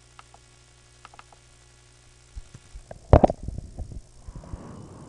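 A steady low hum with a few faint clicks, then a loud thump about three seconds in, followed by a quick run of softer knocks and a short rustle.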